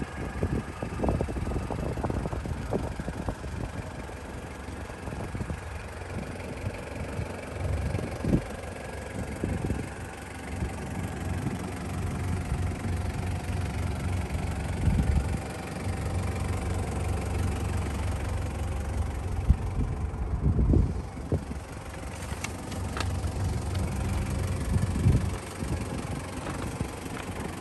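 Toyota 1KZ-TE 3.0-litre four-cylinder turbo diesel running at a steady idle with a diesel clatter, with a few short low thumps along the way.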